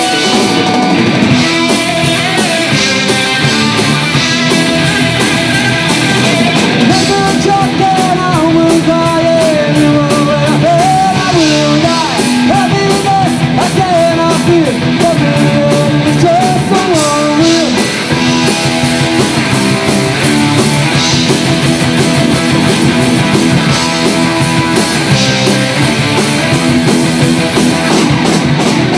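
Rock band playing live and loud: electric guitar, bass and drums, with a wavering lead melody coming in about seven seconds in.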